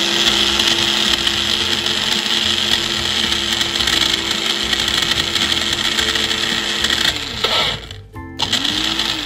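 NutriBullet blender grinding eggshells with a little water: a steady motor whine over a grinding hiss that winds down about seven seconds in, then a second short pulse that spins up and down near the end.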